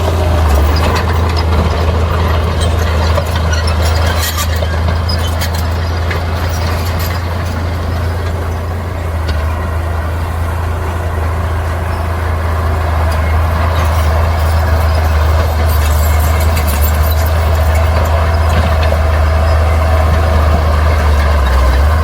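Heavy earthmoving machinery's diesel engine running steadily under load, with bursts of metallic clatter about four seconds in and again around sixteen seconds.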